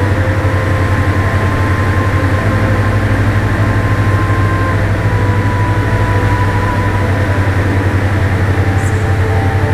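Diamond DA42 Twin Star's twin engines and propellers heard from inside the cockpit in flight: a loud, steady drone with a low hum and a regular pulsing throb.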